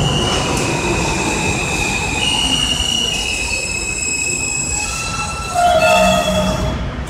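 R160 subway train pulling in and braking to a stop: a loud rumble of wheels on rail with high squealing and whining tones that shift lower as it slows, getting louder about five and a half seconds in.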